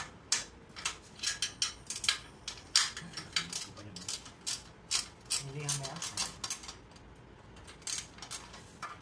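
Hand socket ratchet clicking in short irregular runs as bolts are worked loose on a small gasoline generator engine, with a few metal-on-metal tool clinks; the clicking thins out about two-thirds of the way through.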